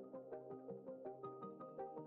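Background music: quick, evenly spaced notes, about five a second, over held low tones.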